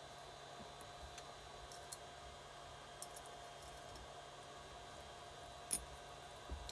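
A few faint, light clicks and taps of small metal engine parts being handled, the sharpest about three-quarters of the way through, over a steady electrical hum.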